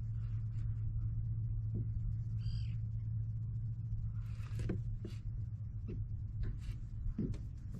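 A single short bird call about two and a half seconds in, over a steady low hum, with a few light clicks and knocks in the second half.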